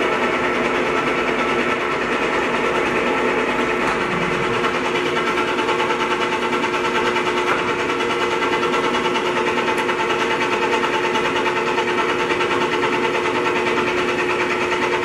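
Clausing Metosa 24" x 120" engine lathe running under power, its spindle drive and headstock gearing giving a steady mechanical whine with several constant tones.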